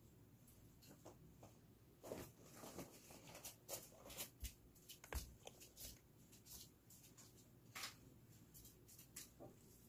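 Faint, irregular clicking and scratching of a chick pecking and working at the shell from inside a pipped chicken egg during hatching.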